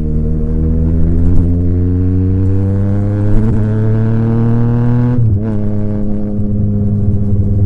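Yamaha MT-09 (FZ-09) three-cylinder engine through an SC Project aftermarket exhaust, pulling under throttle with its note rising steadily for about five seconds. The note then drops suddenly and carries on steady at lower revs.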